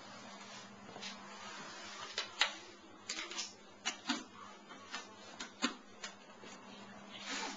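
Irregular light clicks and taps, about a dozen, scattered over a steady low hum, with a brief rustling swell near the end.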